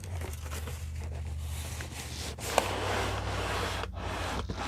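Cardboard and packing scraping and rubbing as an espresso machine is pulled out of a tight-fitting box, with one sharp knock about two and a half seconds in.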